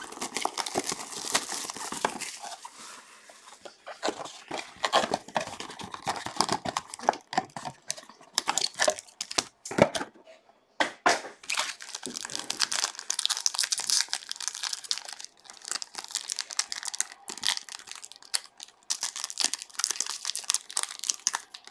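Opening a trading-card box: cardboard handling with short clicks and taps, then the foil wrapper of a card pack crinkling and tearing open, irregular and crackly throughout.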